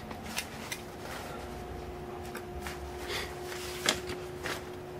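Light clicks and knocks of metal airsoft gearbox parts being handled and set down on a towel, with the loudest knock about four seconds in. A steady faint hum runs underneath.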